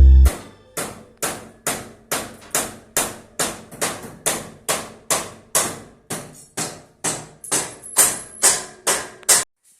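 Hammer blows struck at a steady pace, a little over two a second, stopping suddenly near the end.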